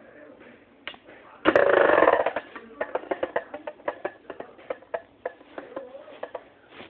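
Metal Beyblade tops (Dark Wolf DF145FS and Rock Leone 145WB) battling in a metal bowl: about a second and a half in they clash in a loud grinding rattle lasting under a second, then knock together again and again in a run of sharp clicks.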